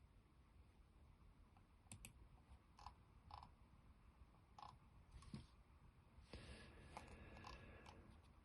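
Near silence broken by a scattering of faint, short computer clicks.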